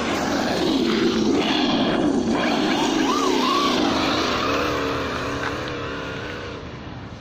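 Losi Baja Rey RC trophy truck driving on gravel. The ESS One Plus sound module's simulated engine revs up and down over the hiss of tyres on loose gravel. It fades away over the last couple of seconds as the truck drives off.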